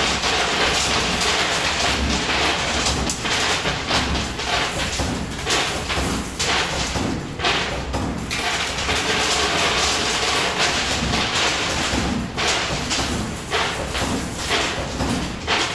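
Coin pusher arcade machine running: coins clinking and thudding against the playfield and each other. Many short knocks come at irregular intervals over a steady, noisy din.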